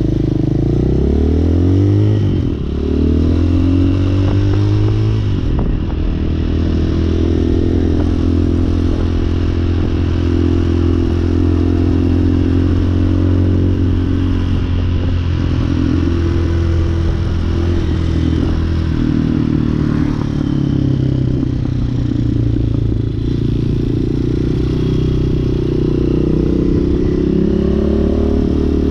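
Hawk 250 single-cylinder dual-sport motorcycle engine accelerating through the gears. Its pitch rises and then drops at two shifts in the first few seconds, holds steady at cruising speed, then eases off and builds again near the end.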